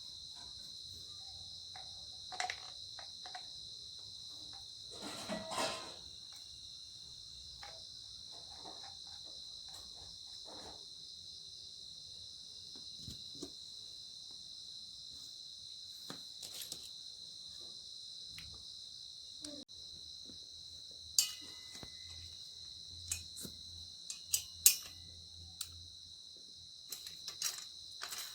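Crickets chirring steadily in a high, even chorus, with scattered light clicks and knocks of handling and a run of sharp clinks near the end.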